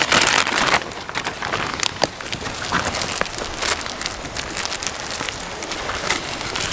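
A Ziploc plastic bag crinkling for under a second, then a steady light hiss with scattered soft crackles and ticks.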